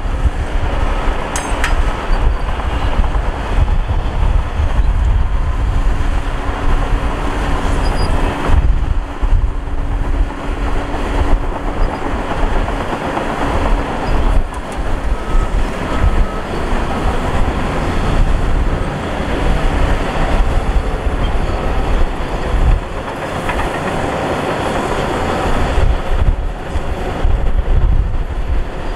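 Loud, continuous rumble and clatter of heavy earthmoving machinery running.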